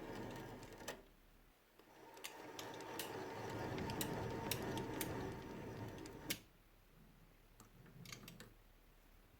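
A workshop machine running with a steady whine and a rough rushing noise, with scattered sharp clicks. It stops about a second in, starts again, and cuts off after a loud click about six seconds in; a few faint ticks follow.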